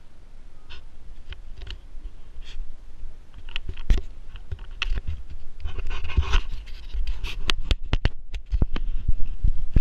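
Handheld camera being moved and bumped against the bedding, with many sharp knocks and rubbing, and a Siberian husky panting close to the microphone. The knocking grows busier from about the middle on.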